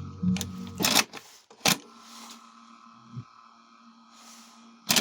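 Skoda MS 202 car radio-cassette unit switching over: the radio sound cuts off about a second in, followed by sharp mechanical clicks of the cassette mechanism and a faint steady hum from the deck, with a soft thump near the middle and more clicks at the end.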